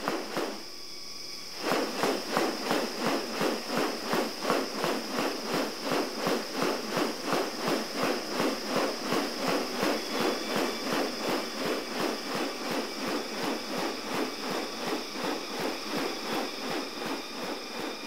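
Male superb bird-of-paradise displaying to a female: a steady run of sharp, rasping pulses, about three a second, starting about two seconds in. A constant high insect whine runs underneath.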